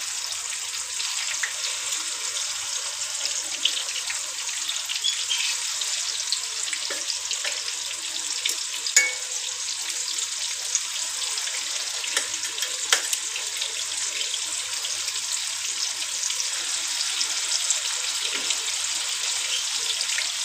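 Spice-marinated fish pieces shallow-frying in hot oil in a non-stick wok: a steady sizzling hiss with scattered crackles and spits, and a few sharp clicks of metal tongs as more pieces go in.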